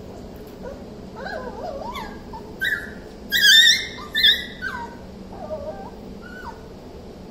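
Beagle puppy whining: a string of high-pitched whimpers and yips that rise and fall, loudest about three and a half seconds in, trailing off into fainter whines near the end.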